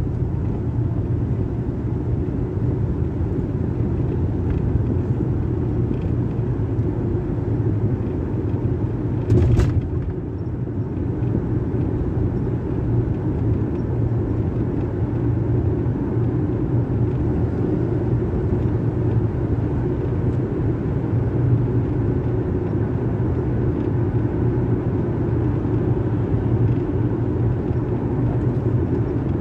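Steady low road and engine noise inside a moving car's cabin, with one short knock about a third of the way through.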